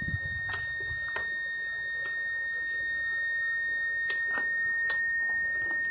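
A steady high-pitched whine runs throughout, from an unseen source, with a few light clicks of a metal fork against plastic food containers while eating.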